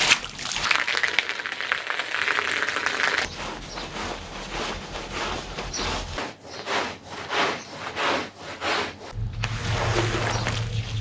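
Brushing and scrubbing on a wet carpet, a run of rough strokes that changes abruptly every few seconds as short clips cut together. A steady low hum from a machine comes in about nine seconds in.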